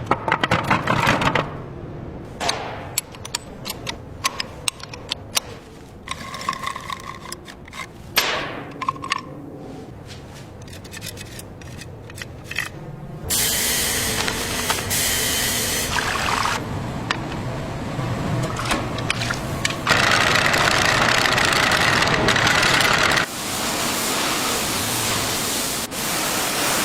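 Workshop noise: scattered clicks and knocks, then from about halfway a steady rushing hiss that comes in several stretches, loudest a little after two-thirds of the way through.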